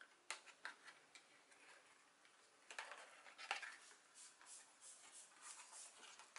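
Faint rustling of cardstock and a few soft clicks as the flaps and pages of a handmade paper scrapbook album are lifted and unfolded by hand.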